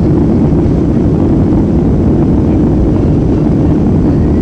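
Steady low rumble of a jet airliner's engines and its rolling on the ground, heard from inside the passenger cabin before takeoff.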